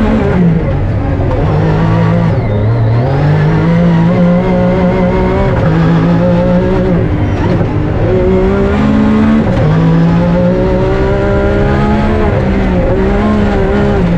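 Rally car engine running hard under load, its pitch repeatedly climbing and dropping back as it shifts through the gears.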